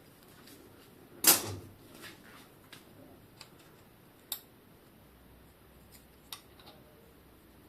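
Hands working on a bicycle while its front brake, wheel and fork are removed: one loud metallic clank a little over a second in, then scattered light clicks and taps of parts and tools.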